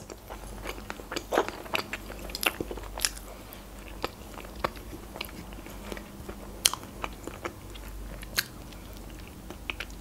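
Close-miked mouth sounds of eating ice cream cake from a spoon: scattered soft clicks and smacks, with a faint low hum underneath.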